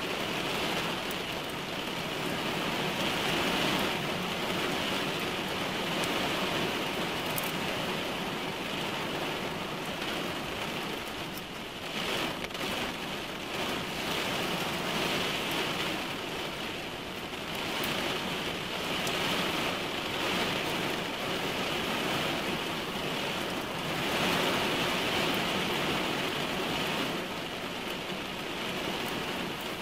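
Heavy rain falling on a car's windshield and roof, heard from inside the parked car: a dense, steady patter that swells and eases every few seconds.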